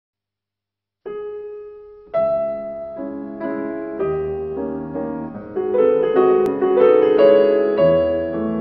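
Solo piano music: silence for about a second, then a single note that fades, then a slow run of notes and chords from about two seconds in.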